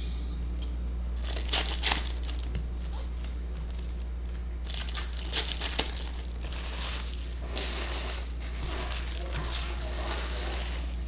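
Foil trading-card pack wrappers crinkling and being torn open in several bursts, over a steady low hum.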